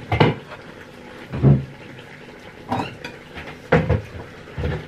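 Kitchen pots and cupboard doors being handled: about five separate knocks and bumps, the loudest a low thump about a second and a half in.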